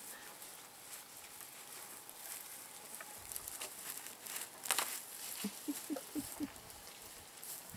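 African elephant feeding on tough grass, tearing it with the trunk and cutting it at the roots with a kick of the foot: an irregular patter of rustling and snapping stems, with one sharper crunch a little past the middle. A few short, faint tones follow soon after.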